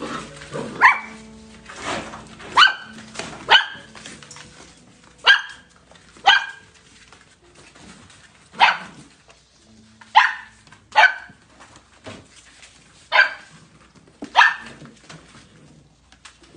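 Golden retriever puppies barking while they play: about eleven short, high-pitched yapping barks, spaced irregularly a second or two apart.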